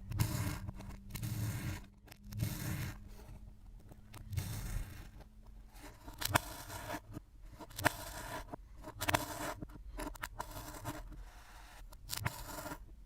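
Kinetic sand being squished and scraped, with a run of gritty scraping and rubbing and several sharp clicks in the second half.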